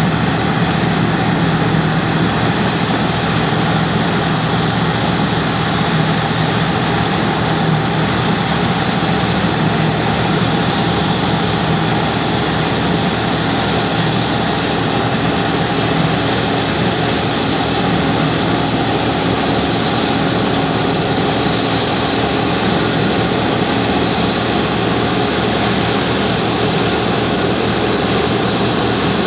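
John Deere 9580 WTS combine harvester running steadily under load, a loud, even machine drone with a few steady low tones in it.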